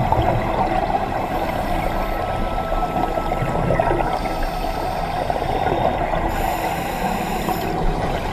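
Underwater sound of scuba divers breathing out through their regulators: a steady, dense bubbling and gurgling of exhaled air. A faint thin whistle sounds for a second or so about two seconds in.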